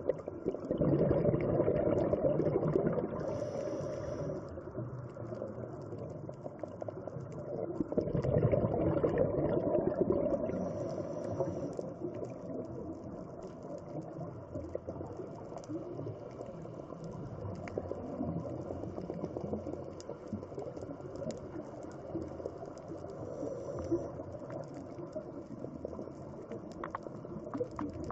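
Scuba regulator breathing heard underwater: exhaled air bubbles out in two long, loud bursts, about a second and about eight seconds in, over a steady low bubbling, with a few short high hisses between.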